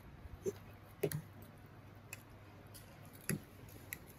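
Forks and spoons clicking lightly against plates every second or so while spaghetti is twirled, a few separate soft clicks over a faint low hum.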